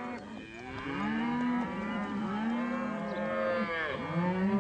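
A herd of cattle mooing, many long calls overlapping one another without pause.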